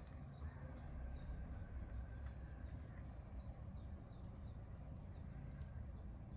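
Faint birds chirping, many short quick chirps a second, over a steady low rumble.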